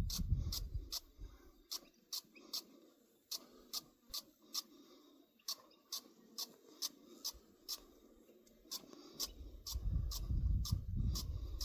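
Short, sharp scratching strokes, about two a second, as the threads of a solar bore pump's new parts are given a going-over to clean them. A low rumble of handling noise sits under the start and comes back near the end.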